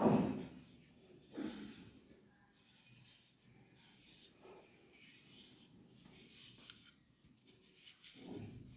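Wooden comb raked through a man's short hair, a scratchy rub about once a second, about seven strokes, with a louder, lower rustle right at the start.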